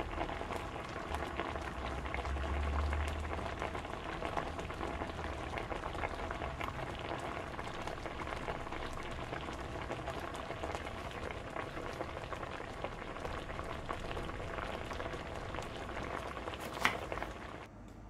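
Hot oil sizzling steadily as battered enoki mushrooms deep-fry, full of small crackling pops, with one sharper pop near the end. The sizzle stops abruptly shortly before the end.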